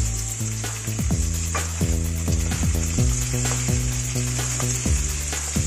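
Sliced onion and garlic sizzling in hot oil in a wok while a wooden spatula stirs them. Background music with a deep bass line and repeated falling bass thumps plays over the frying.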